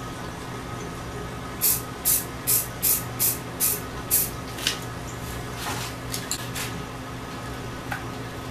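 Aerosol spray paint can sprayed in a rapid string of short bursts, about seven in two and a half seconds, then a few weaker puffs.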